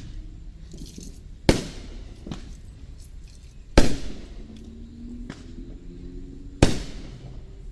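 Aerial fireworks shells bursting: three loud booms, two to three seconds apart, each trailing off in an echo, with weaker bangs between them.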